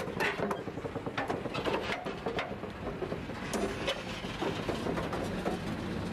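Unrestored steam locomotive 3830 rolling slowly without steam while being moved, its rusty wheels and running gear clanking and knocking irregularly over a steady rumble on the rails.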